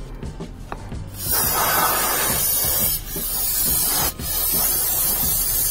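A can of brake cleaner spraying onto a motorcycle's rear brake rotor and caliper, in three long bursts with short breaks between, starting about a second in.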